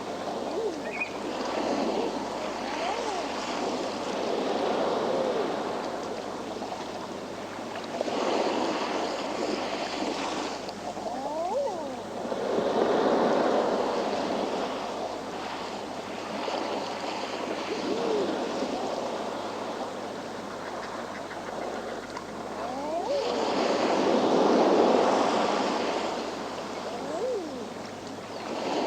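Sea waves washing and breaking on a rocky shore, with a steady rush that swells louder every several seconds as each wave comes in. Brief seabird calls sound now and then over the surf.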